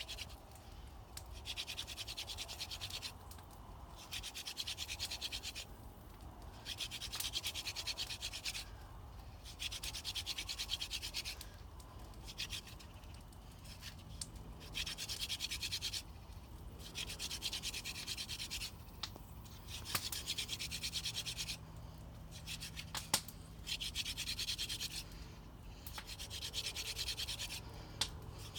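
Hand drill fire-making: a wooden spindle spun between the palms and grinding into a wooden hearth board. It comes as repeated spells of scratchy rubbing, each a second or two long, with short breaks between strokes.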